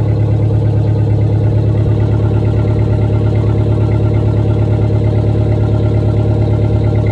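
Truck engine running steadily: an even, deep drone with a regular throb that does not change.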